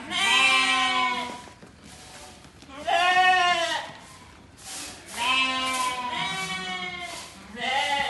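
Merino sheep bleating: about five long, wavering bleats from several animals at different pitches, one after another.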